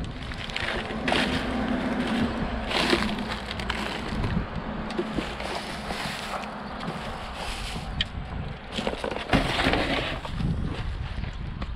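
Scrap and wood debris being shifted and pulled about by hand: irregular scraping, rustling and knocking, with a few sharper cracks.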